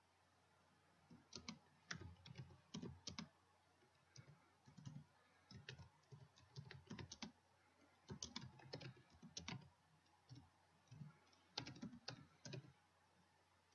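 Faint typing on a computer keyboard, in short irregular runs of keystrokes that start about a second in and stop near the end.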